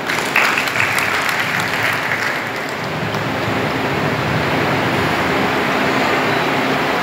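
Audience applauding steadily for several seconds.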